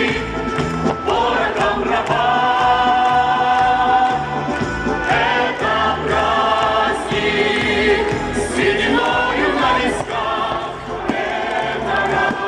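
Music: a choir singing with instrumental accompaniment, over a bass line that moves in steps.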